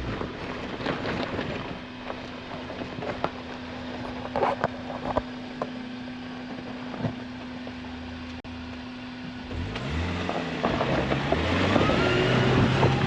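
Suzuki Jimny engine running at a steady low hum with scattered knocks, then revving hard from about ten seconds in, its pitch climbing as it takes a run at a slippery clay climb.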